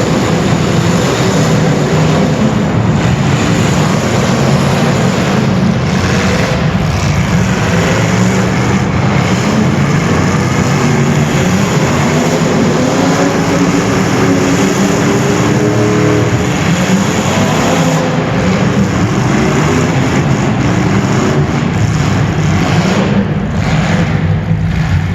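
Race car engines running during a heat race, their pitch rising and falling as the cars speed up and slow down.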